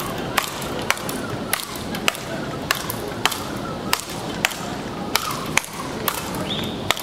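Speedball rackets striking the ball tethered to the pole in a fast rally: a sharp crack about twice a second as the two players trade strokes.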